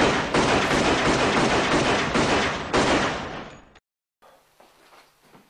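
A loud, harsh burst of dense noise packed with rapid cracks, which fades over about three seconds and cuts off suddenly. A few faint ticks follow.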